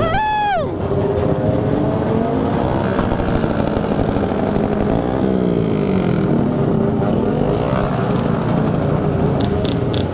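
Several motorcycle engines running together in slow traffic, revved repeatedly: one rev falls away at the very start, and another drops and climbs again about halfway through. A few sharp clicks or pops come near the end.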